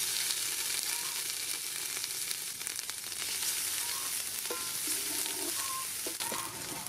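Pounded curry paste sizzling in hot soybean oil in an aluminium pot, a steady frying hiss, as it is stirred with a wooden ladle.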